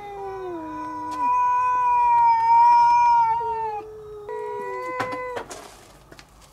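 Two domestic cats, a calico and a brown tabby-and-white, caterwauling at each other in a territorial standoff before a fight: one long drawn-out yowl, then a shorter one about four seconds in, followed by a brief noisy rasp.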